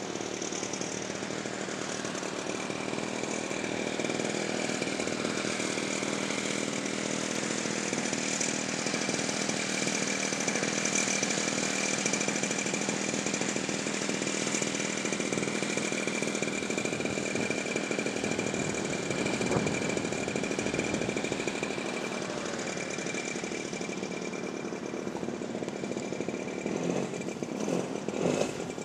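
Electric RC model airplane's E-flite Power 60 motor and propeller running in flight: a steady drone with a constant high whine, swelling a little and easing off again.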